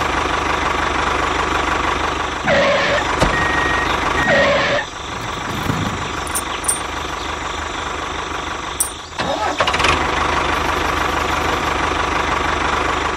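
A tractor engine running steadily at idle, with two short louder sounds about two and a half and four and a half seconds in.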